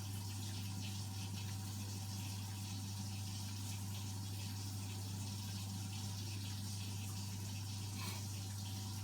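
Vaillant gas boiler running: a steady low hum with an even rushing hiss over it, unchanging throughout.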